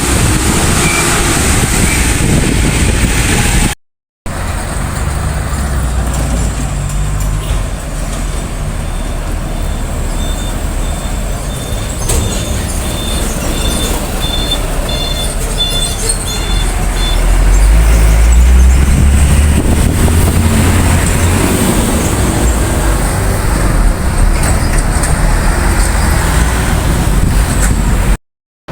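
Road traffic with heavy diesel trucks passing; one truck's engine rumble grows louder and deeper about two-thirds of the way through. A rapid high beeping sounds for several seconds in the middle.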